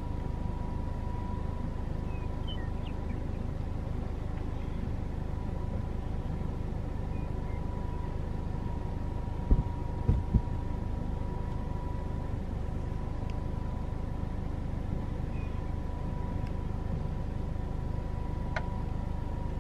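Oil pumpjack running: a steady low rumble with a thin, steady whine over it, and a few dull thumps about halfway through.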